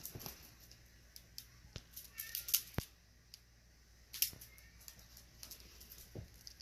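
Russian Blue kitten's claws scratching and catching in a fleecy blanket as it pounces and plays: a scatter of faint, irregular scratchy clicks, the loudest about two and a half seconds in and again just after four seconds.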